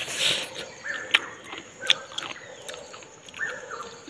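Someone eating a ripe mango: wet biting and sucking sounds, with two sharp clicks about one and two seconds in. Short chirps run in the background.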